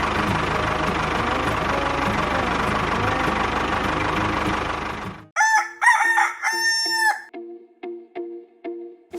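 A loud wash of music and motor noise cuts off suddenly about five seconds in. A rooster then crows once, for about two seconds, followed by a short repeating musical figure.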